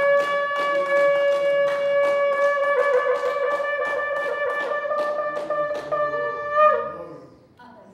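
Shofar (ram's horn) blown as a wake-up call: one long held note that bends briefly upward and cuts off about seven seconds in. Sharp taps, about three a second, run under it.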